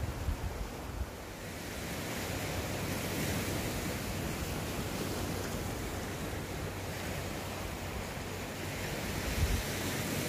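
Sea waves washing against the shore, swelling and easing, with wind buffeting the microphone in low bumps near the start and again near the end.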